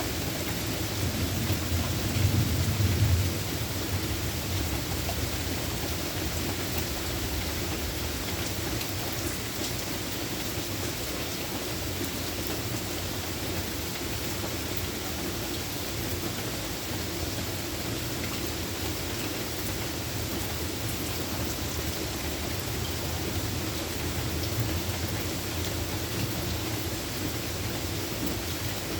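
Steady rain falling, with a low roll of thunder swelling about two seconds in and fading by four seconds, and a fainter rumble near the end.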